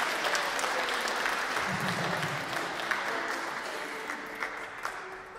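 A small audience clapping, the applause thinning and getting quieter toward the end.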